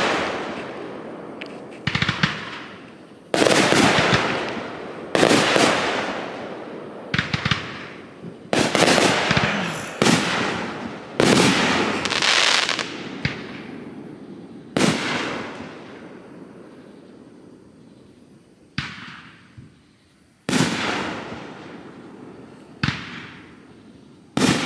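Aerial fireworks bursting overhead: about a dozen sharp bangs, one to two seconds apart, each trailing off over a second or so, with a short lull about two-thirds of the way through.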